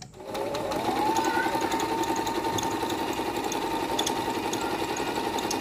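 Electric household sewing machine starting up and running fast, sewing a wide zigzag picot hem. Its motor whine rises over the first second, then holds steady with the rapid needle rhythm.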